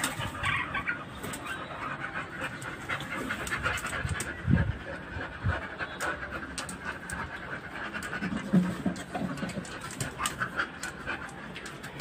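A dog panting steadily, with two low thumps about four and a half and five and a half seconds in.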